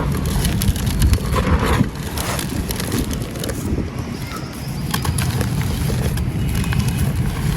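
Dry sand-cement chunks being crumbled: gritty crunching, full of small sharp cracks, over a steady low rumble.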